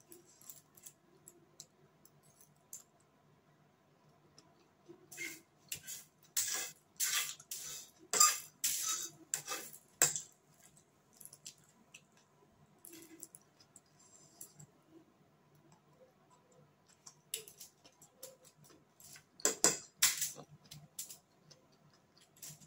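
A metal fork scraping and clinking against a foil-covered plate while the last noodles are gathered up, in quick runs of sharp clicks and scrapes about a quarter of the way in and again near the end.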